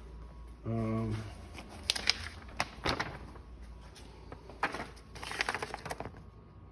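Scattered light clicks and rustles of hands handling wiring and small plastic parts of an ATV switch-panel install, with a short hummed 'uhh' from a man about a second in.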